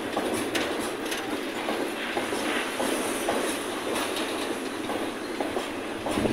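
Freight tank cars rolling past on the track, their wheels clicking irregularly over rail joints under a steady rolling rumble.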